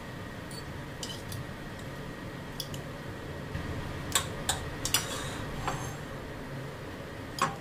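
Metal fork and tongs clinking and scraping against a ceramic plate while boiled chicken is shredded. The clinks are scattered and sharpest around the middle, with a louder clatter of bowls being handled near the end.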